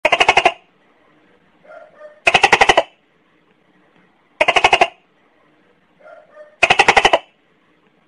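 Gecko calling: four bursts of rapid sharp clicking chirps, about two seconds apart, each a quick run of around eight clicks lasting half a second. Fainter, softer chirps come between the bursts.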